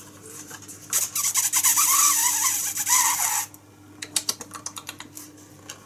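Wrapping paper crinkling and rustling as a small gift is unwrapped by hand. The rustling starts about a second in and lasts about two and a half seconds, then gives way to a few light handling clicks.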